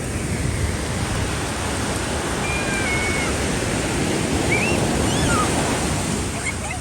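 Ocean surf: waves breaking and washing on the beach as a steady rush of noise, swelling about five seconds in and easing toward the end.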